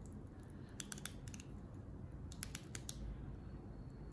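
Unidirectional rotating bezel of a Revue Thommen Diver XL dive watch, steel with an aluminium insert, turned by hand and ratcheting: two quick, faint runs of clicks, one about a second in and another just past two seconds.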